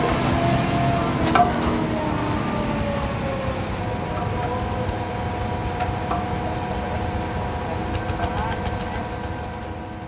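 Tractor engine running under load: its pitch drops over the first few seconds, then holds steady, with a few metallic clanks in the first two seconds. It fades out near the end.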